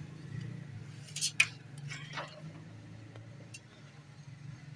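Small hard parts clicking and clinking under a hand at the corona assembly mounting inside a Xerox 5855 photocopier: a quick cluster of sharp clicks between about one and two seconds in, the loudest near the middle of it, then one faint click later.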